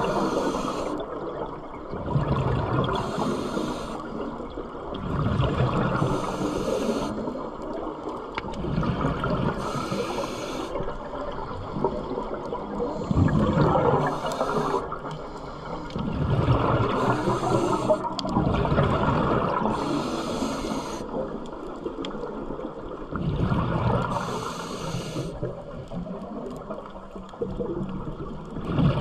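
Scuba diver breathing through a regulator underwater. Each inhale is a short hiss and each exhale a low rush of exhaust bubbles, about one breath every three to four seconds.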